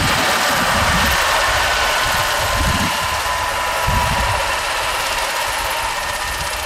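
Five-blade Airbus H145 helicopter on the ground after landing, its twin turboshaft engines whining steadily and the main rotor still turning, slowly getting quieter. Irregular low rumbles of wind on the microphone run underneath.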